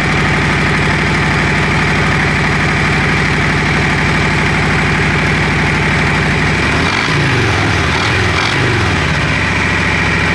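Harley-Davidson Road King's big V-twin idling steadily, then its engine speed rising and falling a couple of times about two-thirds of the way in as it is throttled and set moving.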